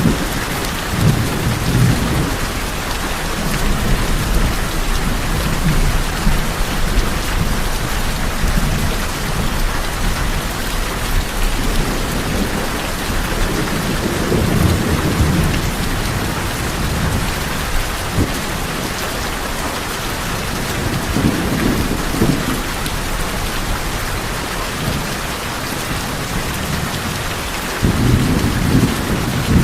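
Steady heavy rain drumming on tin roofs, a constant hiss, with low rumbles swelling now and then, a longer one about halfway and another starting near the end.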